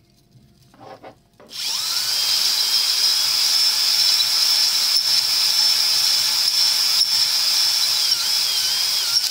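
Cordless drill spinning a stone cylinder hone in an engine bore, starting about a second and a half in and then running steadily with a high whine and a faint wavering squeal over it. This is a slower honing pass on the cylinder wall to put a cross-hatch in it for new piston rings.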